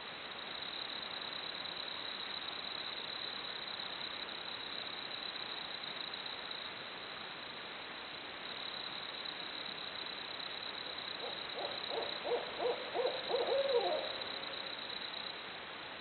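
Barred owl hooting: a quick run of about eight hoots late on, ending in a falling, drawn-out note. A steady high-pitched hum runs underneath.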